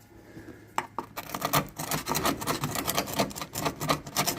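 Rapid, continuous hand scraping at the rusty C-pillar metal, starting about a second in and going on as many quick short strokes.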